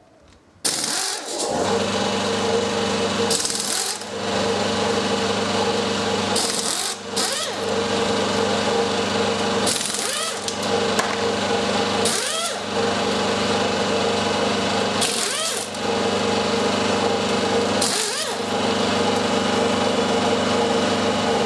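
Pneumatic air ratchet running almost continuously from about half a second in, spinning out the bearing carrier bolts on a Hewland Mk 8 gearbox, with a brief louder hiss every two to three seconds.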